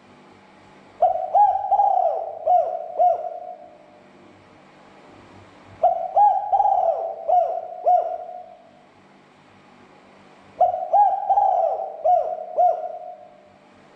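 Spotted dove (tekukur) cooing: three phrases a few seconds apart, each a held coo followed by several shorter falling coos.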